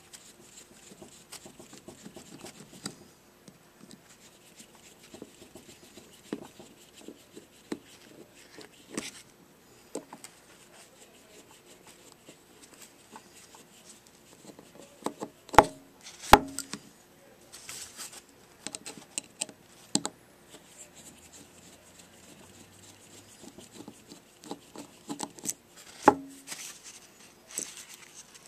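A screwdriver turning out the small cover screws of a two-stroke engine's carburetor during disassembly: faint ticks, scrapes and handling noises, with a few sharp clicks about halfway through and again near the end.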